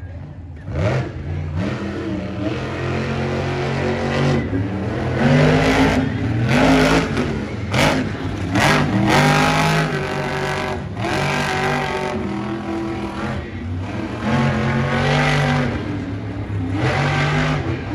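Monster Jam truck's supercharged V8 being driven hard, revving up and backing off again and again as it jumps and climbs obstacles.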